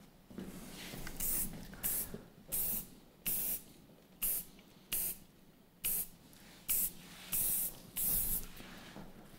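Hairspray sprayed onto hair in about ten short hissing bursts, roughly one every three-quarters of a second.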